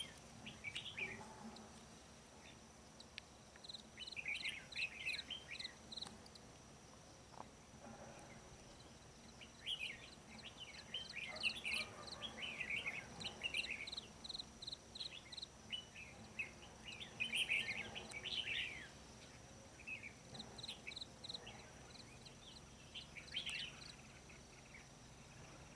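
Red-whiskered bulbuls singing: short bubbly whistled phrases every few seconds, with runs of quick, high repeated notes between them. A faint steady insect drone runs underneath.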